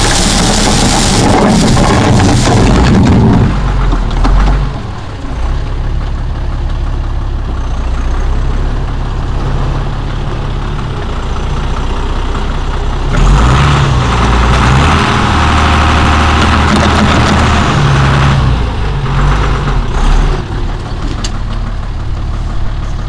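Tractor engine running steadily while a tractor-mounted BEMA 25 rotary sweeper's bristle brush spins against the ground. The brush gives a loud, rain-like swishing hiss for the first few seconds and again for a stretch of about five seconds past the middle.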